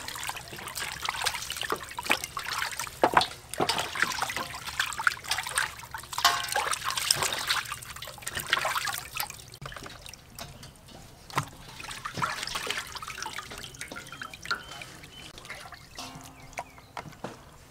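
Water splashing, sloshing and dripping as raw chicken legs are rinsed and rubbed by hand in a large metal basin, busiest in the first half and quieter later.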